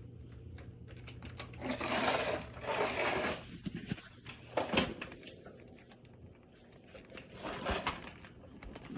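Rustling and handling noises, in several short bursts, over a low steady hum that stops about four seconds in.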